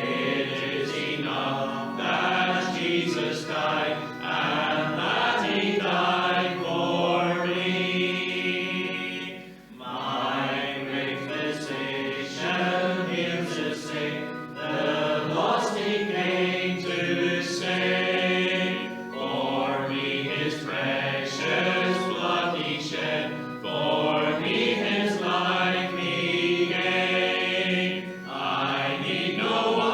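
Congregation singing a hymn together in sung phrases, with a short breath between lines about ten seconds in.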